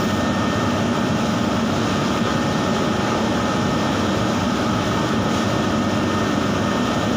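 Spray booth extraction fan running, a loud, steady drone with an even rushing hiss that does not change, even when the spray gun stops.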